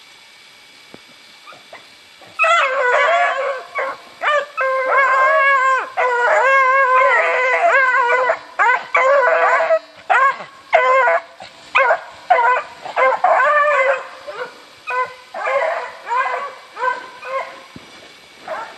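Hounds baying, starting about two and a half seconds in with long drawn-out bawls that break into shorter, choppier barks toward the end.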